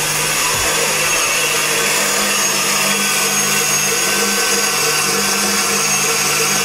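Stand mixer motor running steadily, its whisk beating egg whites in a steel bowl as they begin to turn from liquid to foam.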